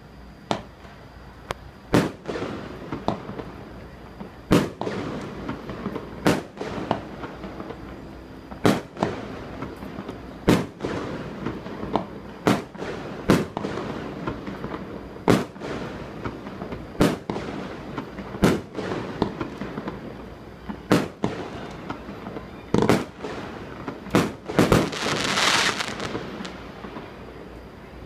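Fireworks bursting over a river: a long run of sharp bangs, one every second or two, with a brief dense crackling burst near the end.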